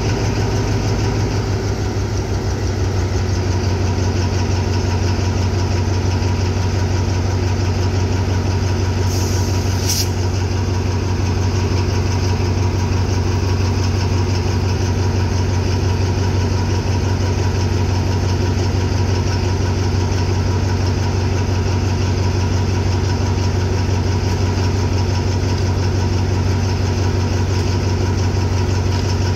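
Alsthom diesel-electric locomotive 4226 idling while standing, a steady deep engine hum. A short hiss sounds about ten seconds in and ends with a click.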